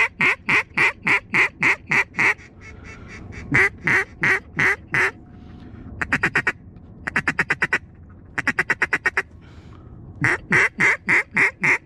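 Mallard duck call blown by a hunter: strings of loud, evenly spaced quacks at about four a second, then three short bursts of rapid feed chatter, then more quacks near the end. It is calling to ducks circling the spread.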